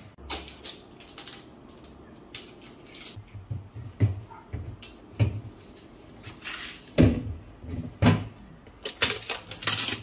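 Refrigerator shelves and clear plastic crisper drawers being handled, with a series of knocks and clatters as the parts are lifted out and set back. The loudest knocks come about 4, 7 and 8 seconds in, with quicker rattling near the end.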